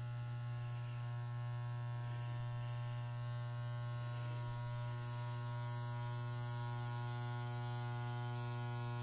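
Spot welder's transformer humming a steady mains buzz while its copper arms pass current through a seized nut to heat it red hot so it can be broken loose.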